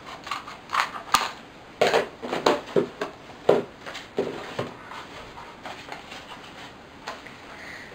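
Scissors snipping through thin cardboard in a few sharp cuts, followed by knocks as the scissors are put down on the table and the card is handled. The second half holds quieter handling sounds.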